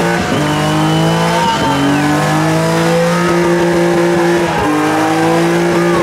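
Car engine held at high revs during a burnout, its pitch creeping slowly upward with brief dips three times, over the hiss of spinning tyres.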